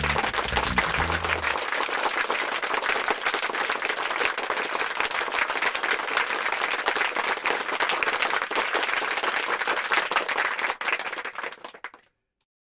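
A band's last low notes ring out for the first second and a half, and then a crowd applauds with dense, steady clapping. The applause fades away about half a second before the end.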